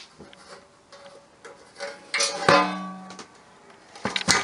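A metal typewriter case being handled: one clank about two and a half seconds in that rings on briefly with a metallic tone, and a couple of sharp knocks near the end.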